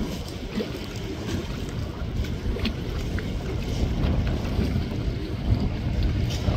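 Wind buffeting the microphone: a dense, gusting low rumble that rises and falls, with no clear tones.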